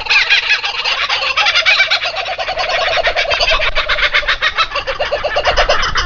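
Nestlings begging: a fast, unbroken run of high chirps, several a second, with a lower-pitched series of calls joining about a second and a half in and fading near the end.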